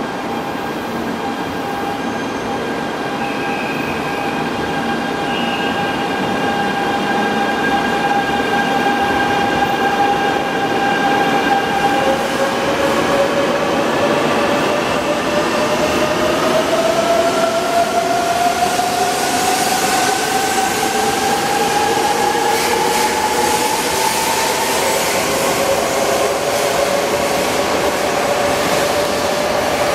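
JR East E2 series Shinkansen train pulling out of the platform: a steady electric whine, then from about twelve seconds in, tones that climb steadily in pitch as the train gathers speed. A rushing hiss with faint regular wheel clicks builds as the cars pass.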